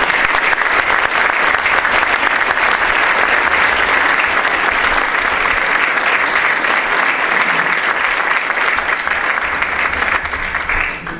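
Audience applauding: steady, dense clapping from a seated crowd that tails off near the end.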